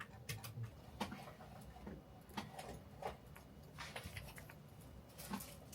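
Faint, irregular clicking of a computer keyboard and mouse, a few scattered clicks a second.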